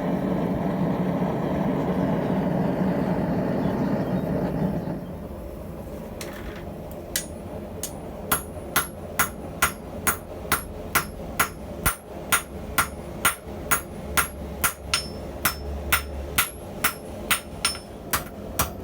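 Hand hammer striking a bar of YK30 steel on an anvil, about two blows a second, each with a short metallic ring. For about the first five seconds, before the hammering, there is a steady rushing noise.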